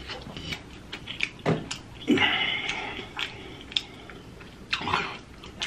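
Close-miked chewing and lip-smacking on sauce-covered spicy chicken wings, with many short wet mouth clicks. Brief grunts or hums from the eater come about 1.5 and 2 seconds in and again near the end.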